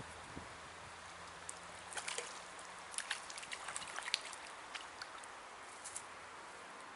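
Steady outdoor hiss of breeze by the water, with a scatter of small sharp clicks and light splashy ticks between about two and six seconds in.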